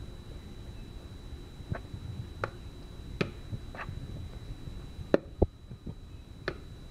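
Metal utensil stirring milk and shredded cheese in a plastic mixing bowl, with irregular light clicks and taps as it knocks against the bowl.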